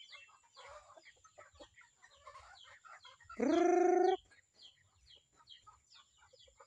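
Flock of native chickens clucking and peeping in short scattered calls. About three and a half seconds in there is one loud, held pitched call lasting under a second.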